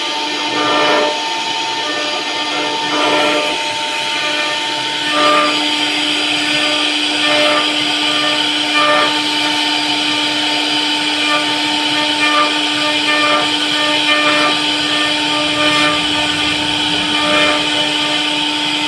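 CNC router spindle running with a steady high whine while its bit cuts wood, with short rasping surges every few seconds as the cut bites.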